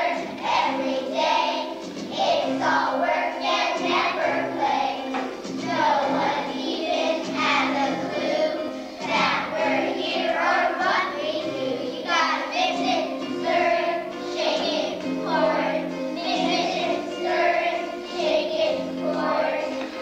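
A choir of young children singing a song together over musical accompaniment.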